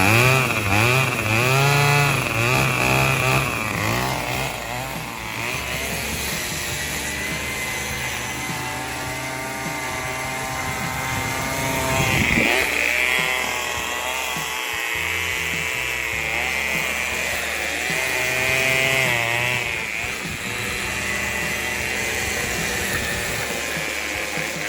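Craftsman Speed Start 27cc two-stroke string trimmer engine running, its revs rising and falling unevenly throughout.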